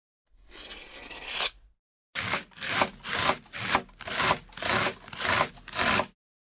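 Kitchen knife cutting with a sawing motion: one long stroke, then a run of about eight quick back-and-forth strokes, about two a second, stopping near the end.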